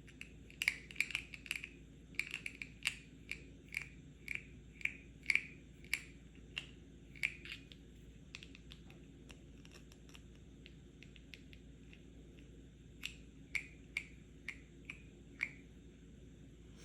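Tapping on a medicine pill box: quick, irregular runs of sharp clicky taps, a lull with only faint light ticks in the middle, then another short run of taps near the end.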